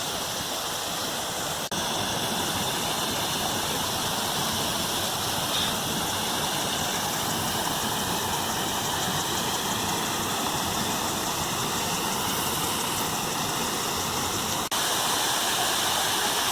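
Waterfall: steady rushing of falling water, cutting out very briefly twice.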